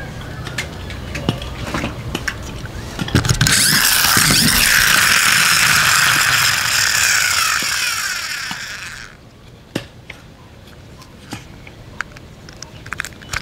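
A toy monster-truck ATV's plastic gears whirring loudly for about six seconds as its wheels spin, fading a little and then cutting off suddenly; small handling clicks before and after.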